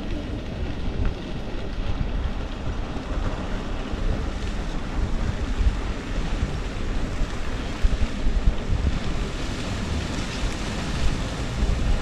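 Wind buffeting the microphone: a steady, fluctuating rushing noise with heavy low rumble.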